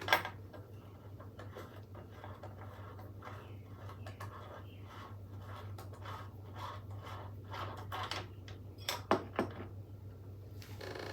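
Faint, scattered clicks and light metallic taps of hand tools and bicycle parts being handled, with a couple of sharper clicks about nine seconds in, over a steady low background hum.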